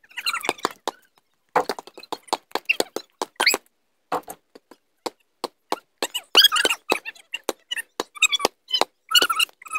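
A basketball being dribbled on a concrete driveway, giving irregular sharp thuds, mixed with short squeaks of sneakers on the pavement.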